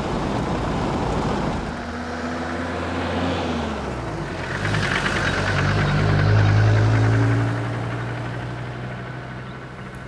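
A 4x4's engine and tyres: first an even rumble of road noise, then the engine note comes up and rises as the vehicle drives past close by, loudest about six to seven seconds in, then fading as it moves away.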